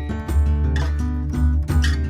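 Background music: strummed acoustic guitar over a steady bass line.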